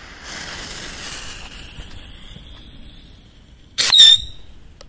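Whistling firework: a fuse hisses for about three seconds, then near the end the firework goes off with a loud, short, high-pitched whistle.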